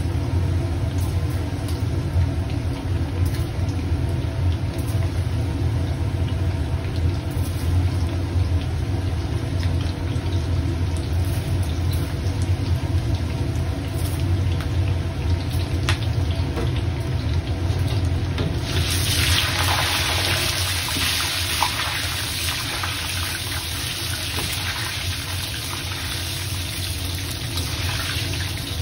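Battered chicken pieces deep-frying in a wok of oil over a gas wok burner: a steady low burner rumble under the sizzle and bubbling of the oil. About two-thirds of the way through, a louder, brighter hiss sets in and stays.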